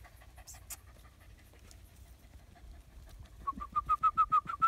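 A small dog panting in quick, squeaky pulses, about seven a second, starting about three and a half seconds in and much louder than the faint clicks before it.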